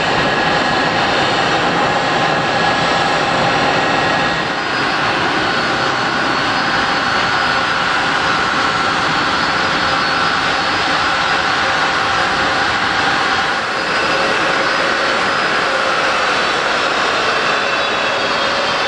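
Jet engines of a Boeing 767-300 airliner running loud and steady, a dense rushing noise with faint whining tones that drift slowly in pitch.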